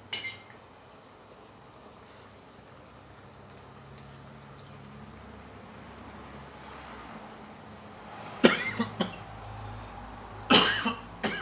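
A man coughing in two loud fits, one about eight seconds in and another near the end, after choking on a taste of the hot, sour curry. Crickets chirp steadily underneath, and there is a light clink of a spoon against the aluminium pot at the very start.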